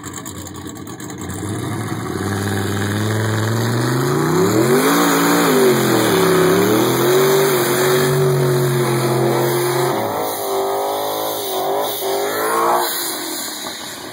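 GMC pickup truck's engine held at high revs through a burnout, rear tyres spinning and smoking. The revs climb over the first few seconds, peak, hold steady, then drop off about ten seconds in, with one more short rev near the end.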